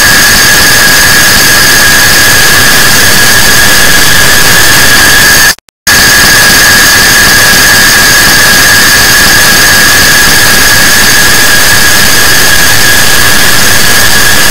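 Clock ticking sped up and stacked so densely that the ticks merge into a loud, continuous harsh noise with steady high whining tones. It cuts out for a split second about five and a half seconds in, then resumes unchanged.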